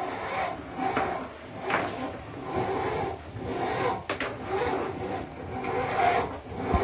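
A flexible drain-cleaning hose rubbing and scraping as it is worked hand over hand through a bathroom floor drain, in rough strokes about once a second.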